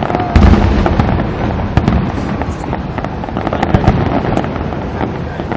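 Aerial fireworks display: a steady run of booms and crackling shell bursts, with the loudest deep boom about half a second in.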